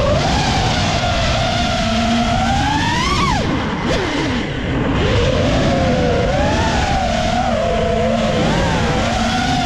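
FPV freestyle quadcopter's brushless Xing motors spinning Gemfan props, a buzzing whine whose pitch rises and falls with the throttle. About three seconds in the pitch climbs, then drops sharply and the sound eases for a moment as the throttle is chopped, before it climbs back and wavers on.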